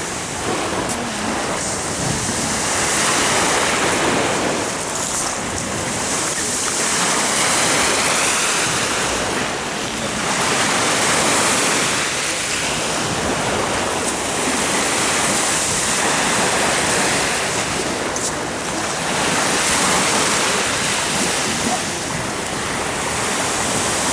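Sea waves washing onto the shore, in slow swells that rise and fall about every four seconds.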